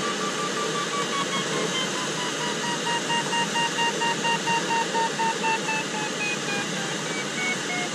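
Sailplane audio variometer beeping rapidly over the steady hiss of air streaming past the cockpit canopy. The beep pitch rises a little at first, then steps down toward the end: the beeping signals the glider is climbing in lift, and the falling pitch shows the climb easing.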